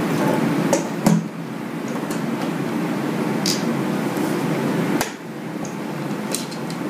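Light clicks and taps of small metal mounting screws and a 3.5-inch hard drive being handled. The sharpest comes about a second in and another about five seconds in, over a steady hum.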